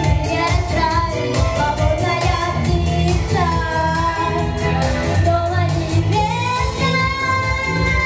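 A boy singing a pop song into a microphone over a pop backing track with a steady beat and bass, holding long, wavering notes.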